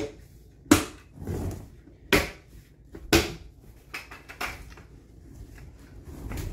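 Plastic lid being pressed and snapped down onto a 5-gallon plastic bucket: four loud, sharp knocks about a second apart, then a few quieter ones.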